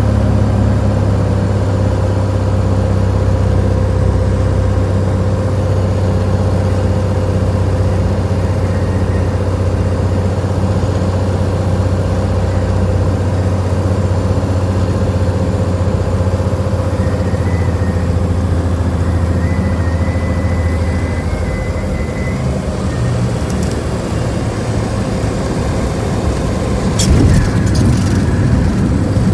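Light aircraft's piston engine and propeller droning steadily inside the cabin on final approach. The engine note drops about three quarters of the way through as power comes off for landing, and near the end there is a brief bump and rumble as the wheels touch down on the runway.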